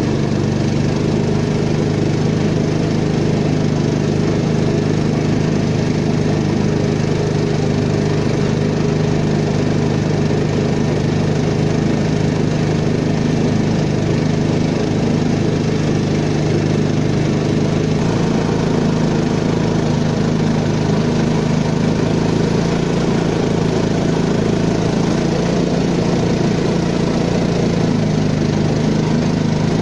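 Peque-peque boat's small long-tail outboard engine running steadily under way. Its note steps up slightly a little past the middle.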